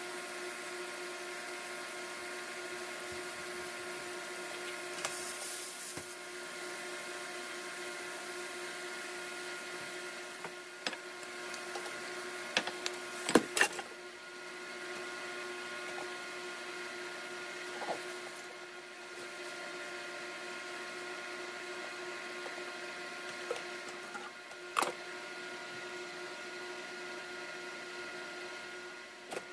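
Food being stir-fried in a nonstick frying pan, over a steady whirring hum. A silicone spatula stirs, with a few sharp knocks against the pan; the loudest knocks come in a quick cluster about 13 seconds in.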